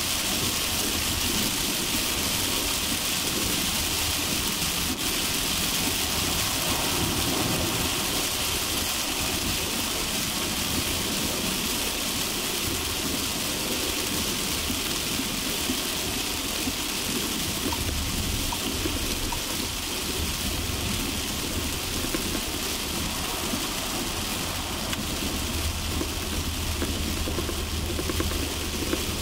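Heavy rain and a car driving on a highway: a steady, dense hiss of rain over the car, with a low road and engine rumble underneath that swells a few times.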